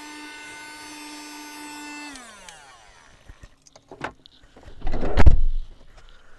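Cheap USB-rechargeable handheld vacuum cleaner running with a steady whine, then switched off about two seconds in, its pitch falling as the motor spins down. A few light clicks follow, then a loud thud, the loudest sound, about five seconds in.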